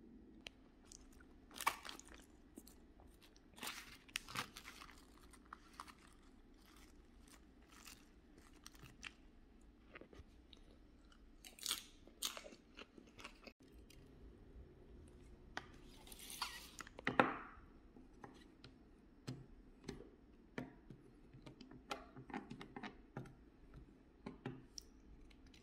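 A person eating close to the microphone: chewing and crunching, with scattered small clicks and taps from chopsticks and plastic takeout containers. A louder rustling crunch comes about 16 to 17 seconds in.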